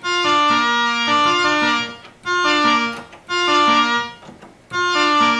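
ARP Omni 1 string synthesizer played on its violin and viola voices: four short phrases of overlapping held notes. The strings do not sound quite right, because the chorus-phaser effect isn't doing anything.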